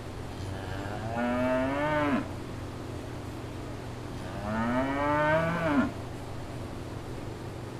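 A cow mooing twice, each call about a second long, rising in pitch and then dropping off sharply at the end.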